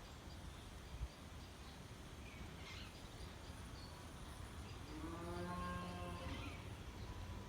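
Village outdoor ambience: small birds chirping now and then over a low steady rumble. A single knock comes about a second in, and a drawn-out pitched call lasting about a second and a half comes about five seconds in.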